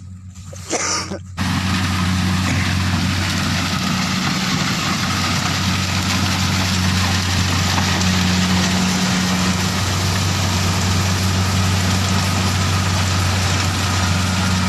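Kubota reaper's engine running steadily with a low, even hum. It starts abruptly about a second and a half in, after a few short sounds.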